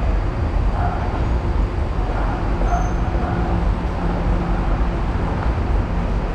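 Steady low rumble of railway station ambience, with train noise under it.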